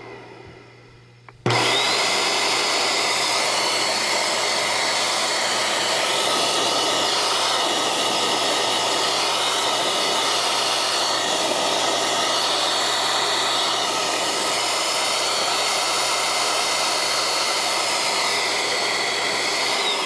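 Dirt Devil Power Max Pet upright vacuum's motor and impeller, run with the belt off and the dust canister removed, switched on about a second and a half in. It starts suddenly, its whine climbing quickly to a steady high pitch, then runs steadily with a rush of air. This is a test of whether the impeller still draws suction in a vacuum that overheated and cut out, a fault the owner puts down to clogged filters.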